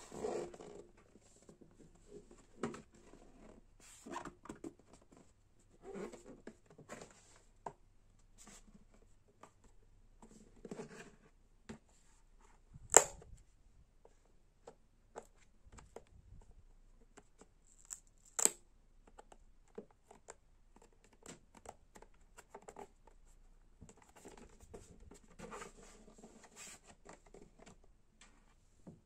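Hands handling the plastic shell of a Deko DNS 550E welding helmet: scattered rubbing, scraping and light knocking on the plastic, with two sharp clicks, one near the middle and another a few seconds later.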